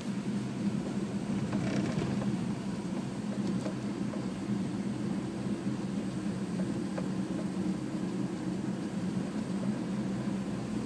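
Steady low engine drone with road noise, heard from inside a car's cabin at slow, even speed.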